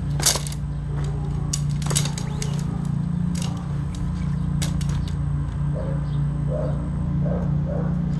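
Tent pole sections clicking and clacking as they are snapped together, a handful of sharp clicks over the first five seconds, against a steady low hum.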